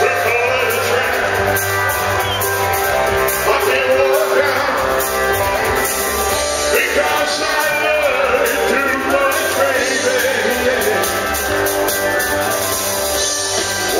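Live band music: a male singer singing into a microphone over drums and bass guitar.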